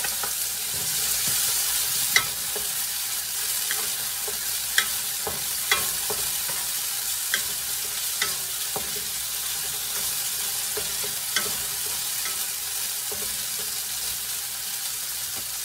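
Sliced onions and diced tomatoes sizzling in oil in a nonstick pan, stirred with a wooden spatula that knocks against the pan now and then in sharp clicks.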